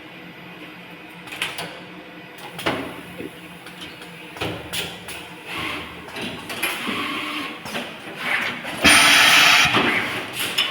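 Automatic wire harness lug crimping and tape bundling machine running over a steady hum, with irregular mechanical clacks and a loud hiss of air about nine seconds in.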